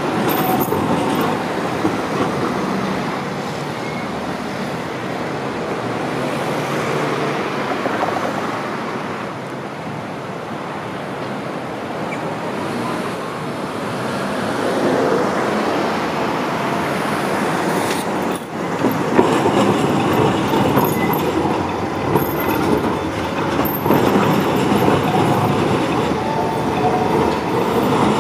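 Street trams rolling along city tracks among road traffic: a steady rumble of tram wheels on the rails and running gear, mixed with passing cars. It grows a little louder in the last third as a tram comes through the curve.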